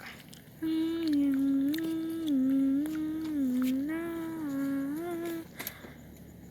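A person humming a short tune for about five seconds, the pitch swinging up and down between a few notes.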